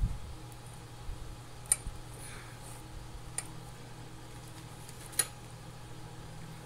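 Four sharp, separate clicks from small parts being handled during hand work on the fan's wiring, spaced about one and a half to two seconds apart, over a low steady hum.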